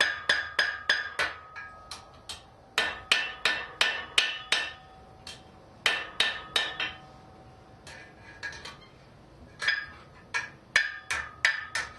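Blacksmith's hammer striking a hot mild steel rod on an anvil, in quick runs of blows about four a second with short pauses between runs, the anvil ringing after each run.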